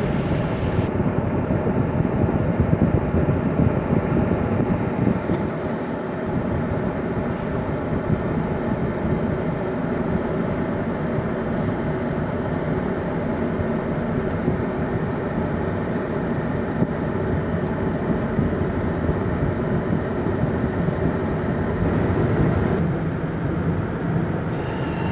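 Steady engine and road noise of moving vehicles, an unbroken rumble.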